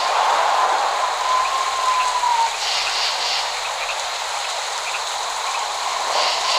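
Steady rain falling, an even hiss with no thunder rumble.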